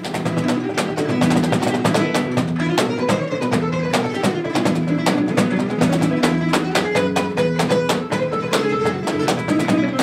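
Tambura, the Croatian long-necked lute, playing a quick plucked melody over a steady beat of cajón hits.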